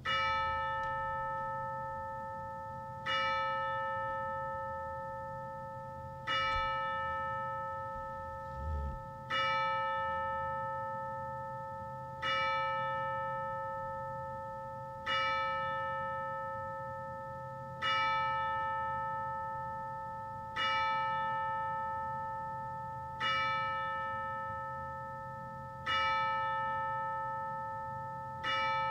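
A single church bell tolling slowly, struck about every three seconds at the same pitch, each stroke ringing on and fading before the next.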